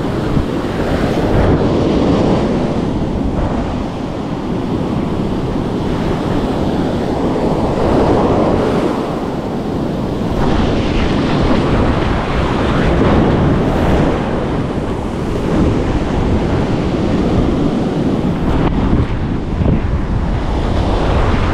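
Ocean surf breaking and washing up a sandy beach, swelling and easing as each wave comes in, with wind buffeting the microphone.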